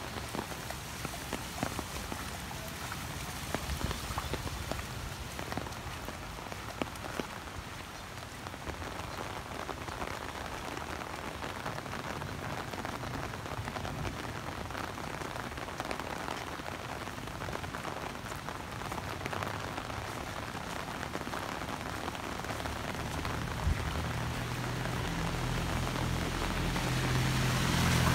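Heavy rain falling steadily on a wet street, with close drops ticking on an umbrella overhead. Near the end a vehicle engine grows louder as it approaches.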